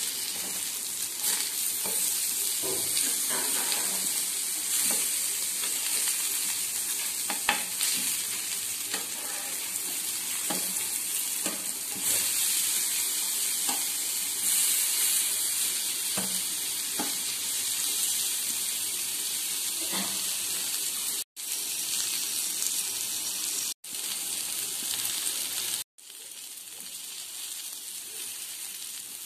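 Semolina-coated mackerel shallow-frying in oil in a non-stick pan, sizzling steadily, with scattered taps and scrapes of a steel spatula against the pan as the fish are pressed and turned. The sound drops out briefly three times in the second half and is quieter over the last few seconds.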